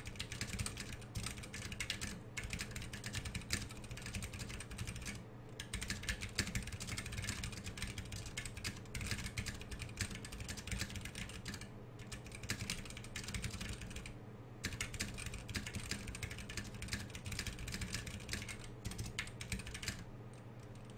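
Fast typing on a custom 60% mechanical keyboard with 67 g Zealio tactile switches and DSA-profile Granite keycaps: a dense, even stream of keystroke clacks with a few short pauses, stopping about a second before the end.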